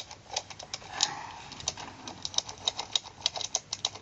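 Quick, irregular clicking of the hard plastic cap and flaps on a Spin Ice candy toy being worked by hand, several clicks a second.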